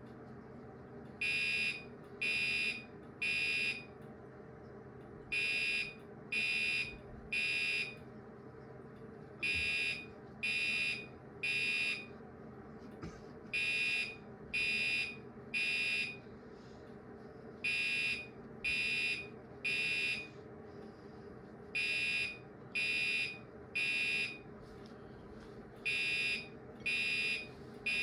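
Gentex Commander 3 fire alarm horn sounding in the temporal-3 evacuation pattern. It gives three short horn blasts about a second apart, then a pause, and the group repeats about every four seconds.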